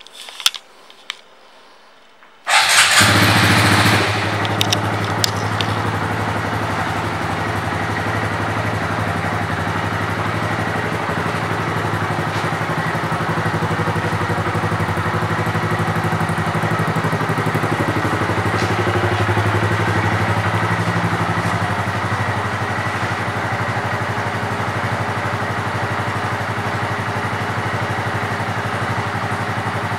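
2019 Honda Grom's single-cylinder 125 cc engine with an aftermarket exhaust, started about two and a half seconds in after a couple of sharp clicks. It runs briefly louder as it catches, then settles into a steady idle.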